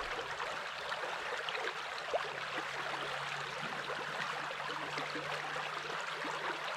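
Shallow trout creek running over riffles: a steady rushing of moving water.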